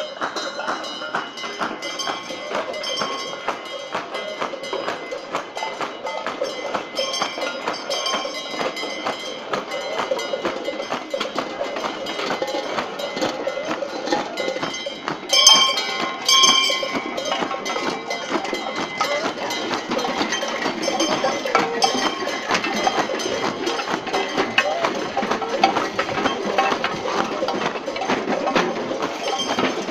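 Street masquerade band clanging bells and beating metal percussion in a steady jangling rhythm, with voices of the crowd mixed in; a bell rings out loudly twice about halfway through.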